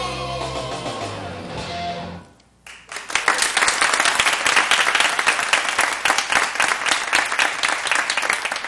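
The last chord of a song's music is held and fades out over about two seconds. After a brief hush, an audience of parents applauds from about three seconds in.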